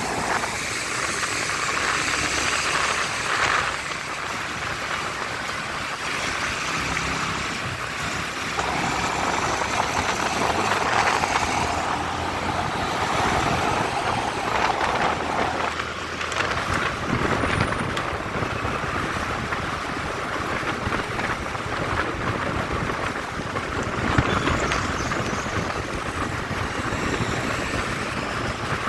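Steady road traffic noise on a busy city road: vehicle engines and tyres running continuously.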